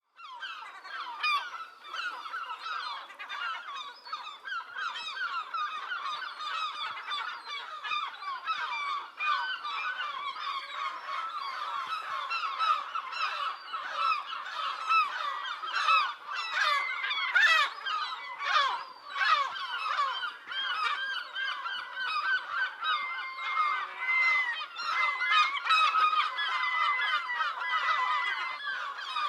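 A flock of birds, likely geese, calling without a break: many short honking calls overlap into a dense chorus, with a few longer held notes in the second half.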